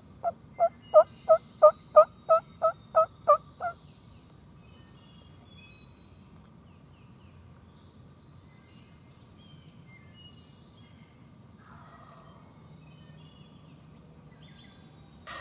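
Series of about a dozen turkey yelps, evenly spaced at about three a second, building then fading and over about four seconds in. Then quiet woods with faint, scattered high birdsong.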